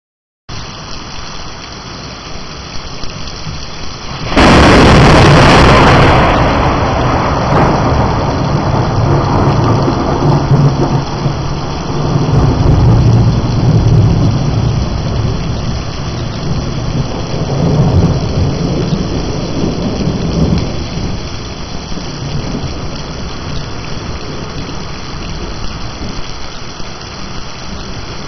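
Heavy rain pouring steadily onto a patio and yard. About four seconds in, a sudden loud close thunderclap cracks and then rolls on as a deep rumble that swells and fades over some fifteen seconds, while the rain keeps on.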